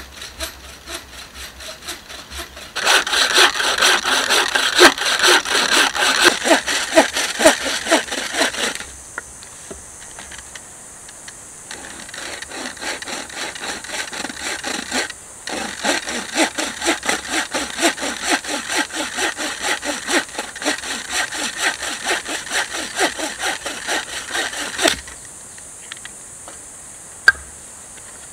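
Hand saw cutting through a log: quick, rhythmic back-and-forth strokes, about two a second, in two long bouts with a short pause between, then stopping. A single sharp knock near the end.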